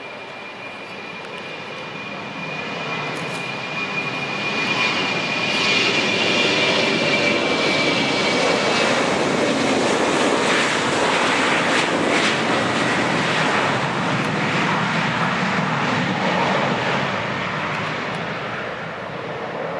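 An Airbus A318-121's two Pratt & Whitney PW6000 turbofans running at takeoff thrust as the jet rolls down the runway and lifts off. A high fan whine fades over the first several seconds while the engine noise builds, is loudest from about six to thirteen seconds in as the plane passes, then eases slightly.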